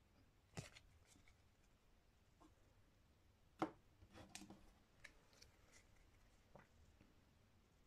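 Faint handling of card decks and a cardboard game box: a few light taps and clicks, the sharpest about three and a half seconds in.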